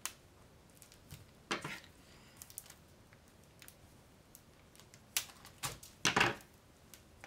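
Handling noises from a plastic-wrapped rolled canvas tube and a pair of scissors on a wooden table. There are a few short rustles and light knocks, and the loudest come about five and six seconds in, as the scissors are picked up.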